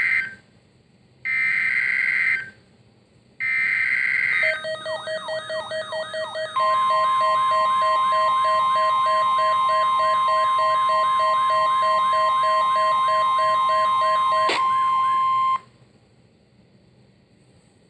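NOAA Weather Radio / EAS SAME digital header: the end of one screechy data burst, then two more, each about a second long. About four and a half seconds in, a pulsing tone with quick repeating falling chirps begins. About two seconds later the steady 1050 Hz weather radio warning alarm tone joins it, and both cut off sharply, with a click just before the end.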